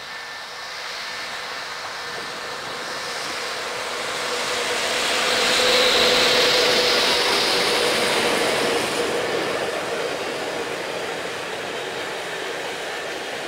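Electric freight locomotive passing close by, followed by a long train of double-deck car-carrier wagons. The rolling noise of wheels on rail swells to its loudest about six seconds in as the locomotive goes past, then settles into a steady rolling sound from the wagons.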